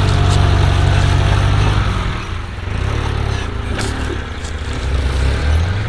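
A 4x4 vehicle's engine running, steady for about two seconds, then rising and falling unevenly.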